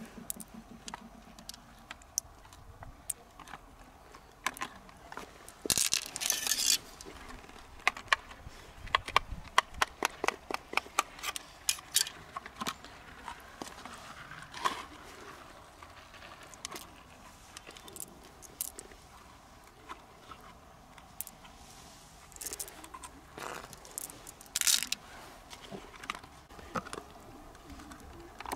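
Hands handling opened freshwater pearl mussels: many small sharp clicks of pearls and shell knocking together, densest in a run about a third of the way in, with a few brief louder rustles and scrapes.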